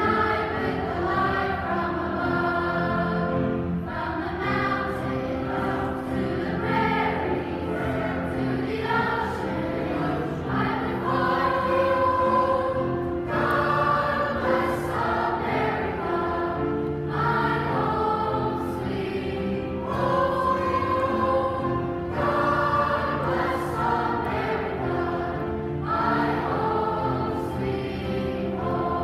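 Large children's choir singing, in phrases a few seconds long.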